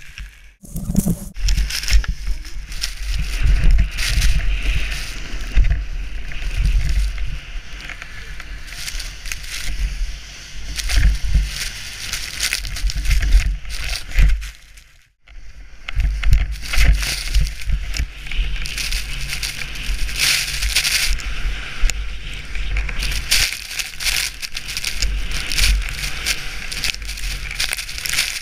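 Wind buffeting a helmet-mounted action camera, with snow spraying and scraping against the rider and sled as they are towed fast behind a snowmobile through deep snow. The sound drops out briefly twice, about a third of a second in and about halfway.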